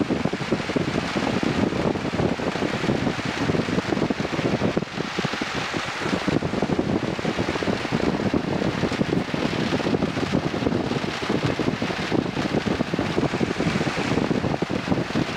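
Piper Cub's engine and propeller running steadily, with wind rushing past, heard from inside the cockpit.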